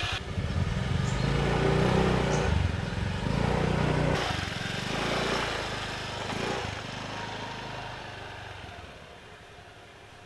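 Motorcycle engine revving as it pulls away, loudest in the first few seconds, then fading steadily as it rides off.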